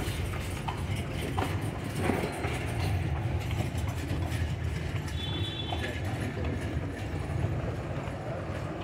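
Horse-drawn carriage rolling over a stone street: a steady low rumble from the wheels, with hoof clops and knocks here and there. A short high-pitched tone sounds about five seconds in.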